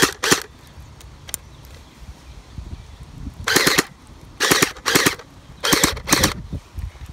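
Battery-powered water-bead blaster dry-firing with no beads loaded, in short bursts of about a fifth of a second: one just after the start, then five more from about three and a half seconds in.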